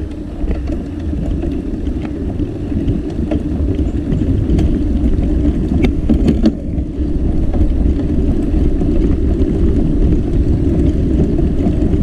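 Steady low rumble of wind buffeting the microphone and tyres rolling on a concrete path while riding a Trek Navigator 2.0 comfort bike, with a few sharp knocks around the middle.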